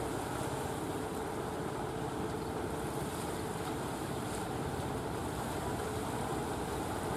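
Steady drone of a motorised wooden fishing boat's engine as it passes close by, over the wash of water at its bow.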